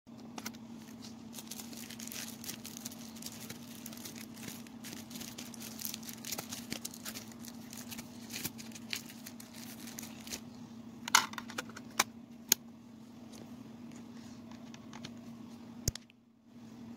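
Handling noise from a portable CD player and its zippered carry case: rustling and many small plastic clicks, then a few sharp louder clicks about eleven to twelve seconds in as the lid is shut and buttons pressed. There is another click near the end, with a steady low hum underneath throughout.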